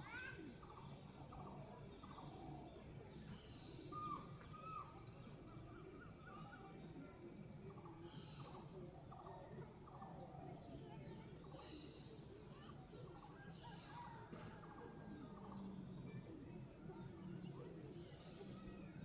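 Faint outdoor background of birds chirping now and then, with short high calls every couple of seconds over a low steady hum.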